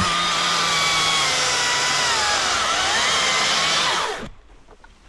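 Husqvarna 542i XP battery chainsaw run up to full speed and cutting through a branch, with a steady electric-motor whine. The pitch sags under load around two and a half seconds, rises again, and the saw stops about four seconds in.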